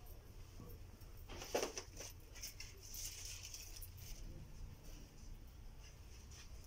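Quiet shop room tone: a steady low hum with faint scattered rustles and clicks, and one brief louder rustle about a second and a half in.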